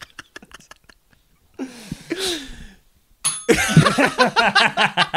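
Two men laughing hard: quiet gasping breaths at first, a long wheezing cry falling in pitch about two seconds in, then loud ha-ha-ha laughter pulsing several times a second from about three and a half seconds on.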